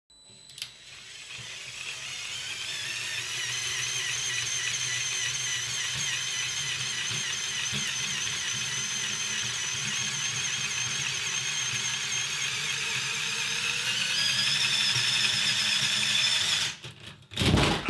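Small electric motor and gears of a LEGO train whirring steadily as it hauls the train up a steep track. The whir rises in pitch near the end, then cuts off suddenly, followed by a few knocks.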